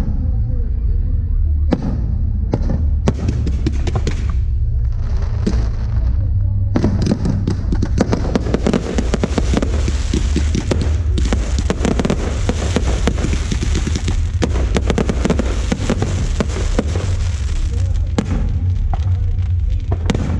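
Aerial fireworks bursting: a few separate bursts at first, then a long stretch of dense crackling that thins out near the end, over a steady low rumble.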